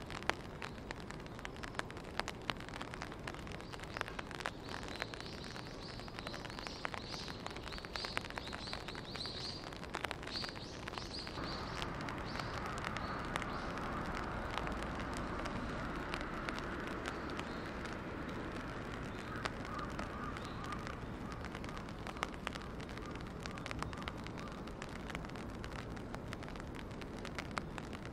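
Scattered sharp clicks and knocks, with a bird chirping a quick run of short high notes in the first part. From about a third of the way in, a soft steady hum of distant noise joins.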